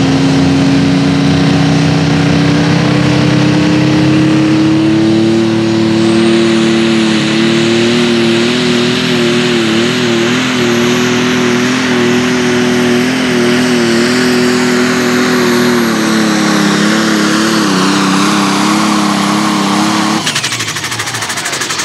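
Allis-Chalmers light limited super stock pulling tractor's engine running flat out under load as it drags the sled. Its pitch climbs a little and then holds, with a high whine coming in about six seconds in. The engine note cuts off suddenly near the end as the pull finishes.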